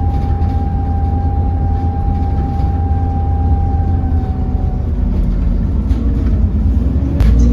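Inside an Alexander Dennis Enviro400 double-decker bus on the move: a low engine rumble with a steady high whine, the vacuum-cleaner-like sound behind its 'Hoover' reputation. The whine fades out about five seconds in. Near the end there is a sharp knock, and the engine gets louder and begins to rise in pitch as the bus pulls away.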